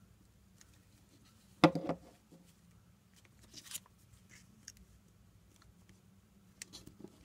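Quiet handling of paper crafts: a glue stick rubbed on paper and a paper cutout pressed down onto a sheet, with light rustles and small clicks. A brief louder thump about a second and a half in.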